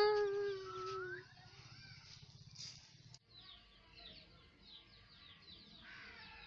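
A long, drawn-out vocal cry at one steady pitch, ending about a second in, followed by birds chirping in a quick run of short falling chirps.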